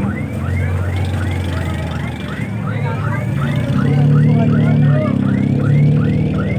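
A car engine running through its exhaust, swelling louder twice in the second half, as if being revved. Over it plays a high chirp that rises quickly and repeats about four times a second.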